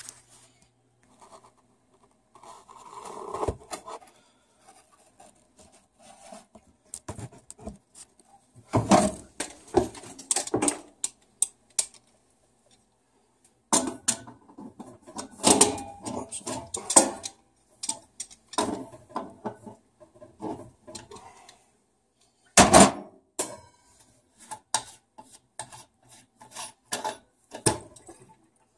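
Irregular metallic clinks, knocks and scrapes of tongue-and-groove pliers working on a brass boiler air vent to loosen its top, with handling noise between the louder knocks.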